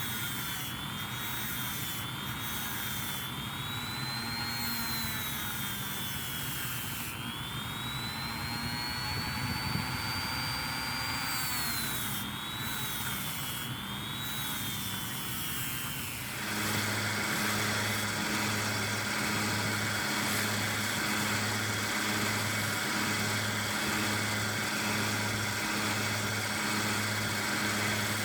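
High-speed rotary tool spinning an abrasive or polishing wheel on small hacksaw handle hardware, its high whine rising and falling as the wheel is pressed on and eased off. About two-thirds of the way through it changes to a steadier, fuller running sound with a regular low pulse.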